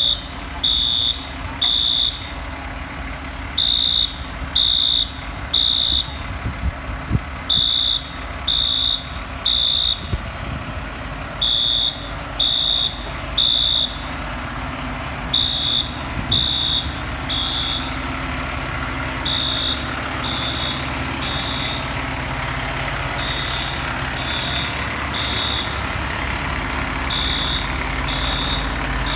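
A building fire alarm sounding the temporal-three evacuation signal: three high beeps about a second apart, a pause, then again, growing fainter after about seventeen seconds. Under it a fire truck's diesel engine idles steadily.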